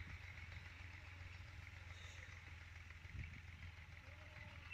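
Quiet rural outdoor ambience: a faint, steady low hum with a couple of soft footsteps about three seconds in.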